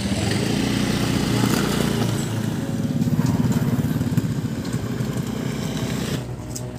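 Honda Scoopy automatic scooter's small single-cylinder engine running as the scooter pulls away with two riders, getting louder as it accelerates, then dropping off sharply near the end.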